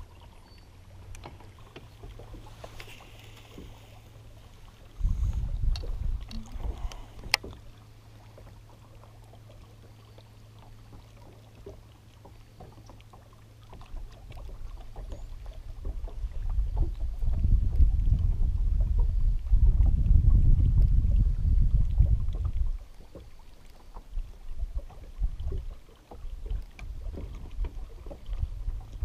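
Low rumbling wash of lake water against a bass boat's hull, swelling loud about five seconds in and again for several seconds past the middle, over a faint steady low hum. One sharp click about seven seconds in.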